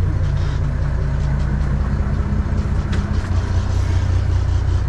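Charter fishing boat's engine running steadily under way, a continuous low drone.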